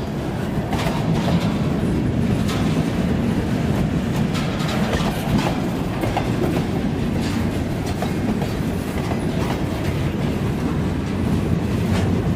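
Freight train cars rolling past, wheels clacking over rail joints with irregular sharp clicks over a steady low rumble.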